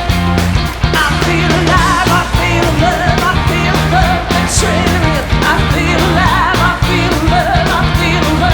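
Rock music with a singer over a steady beat.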